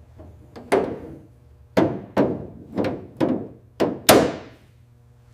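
A run of about seven sharp hammer knocks on a car body panel, unevenly spaced, as the panel is secured in place; the loudest blow comes about four seconds in.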